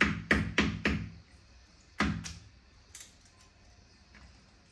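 Knife chopping through raw chicken onto a cutting board: four quick strikes, then two more about two seconds in and a lighter one shortly after.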